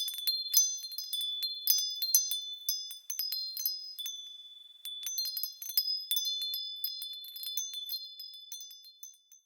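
Wind chimes ringing: an irregular scatter of quick, high-pitched strikes whose tones ring on and overlap. The strikes thin out for a moment around the middle, pick up again, then die away at the end.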